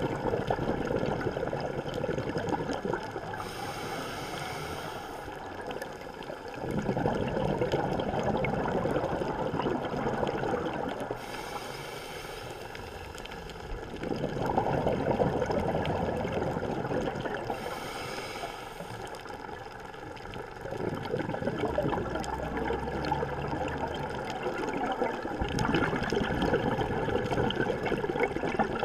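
Scuba diver breathing through a regulator underwater: three hissing inhalations, each followed by a longer, louder rush of bubbling exhaled air.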